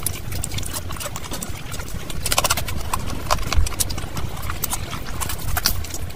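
Close-miked eating sounds: wet chewing with irregular mouth clicks and smacks as a handful of rice and curry is eaten by hand, the clicks coming thickest a couple of seconds in and again near the end.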